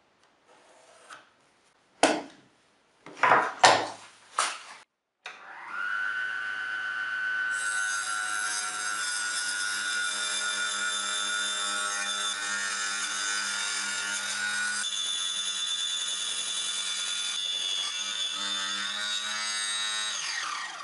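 A few sharp knocks, then a small benchtop table saw starts up, its motor whine rising briefly to a steady pitch, and cuts through an MDF board with a steady whine and rasp of the blade in the wood for about a dozen seconds. The sound stops abruptly at the end.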